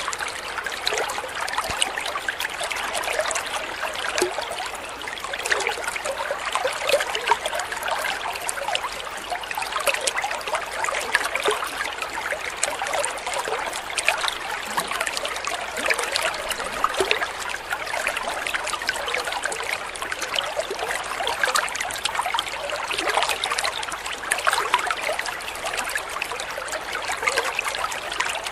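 Small stream of water pouring from an inlet into a koi pond, a steady trickle and splash on the pond surface.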